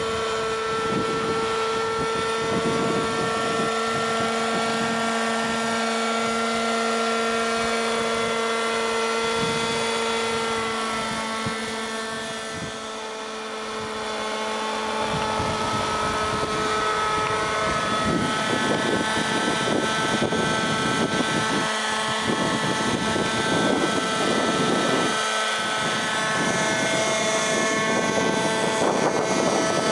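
Radio-controlled scale model helicopter built as Airwolf (a Bell 222) flying: its engine and rotors give a steady whine made of several even tones. The sound dips briefly around the middle, then grows rougher and fuller with a rushing noise as the model passes low and close.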